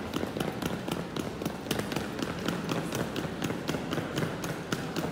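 Walking across a hard tiled floor: quick, regular clicks, several a second, over a steady low background hum.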